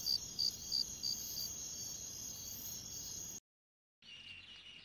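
Night insect sounds: a cricket chirping about three times a second over a steady high-pitched insect trill. The sound cuts off suddenly about three and a half seconds in, and after a brief silence faint bird chirping begins near the end.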